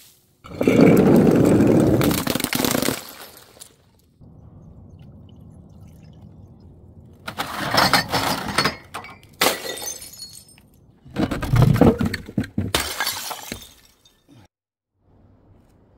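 Glass bottles shattering in three loud crashes, about a second in, about seven seconds in and about eleven seconds in. Each crash is a burst of breaking and clinking glass.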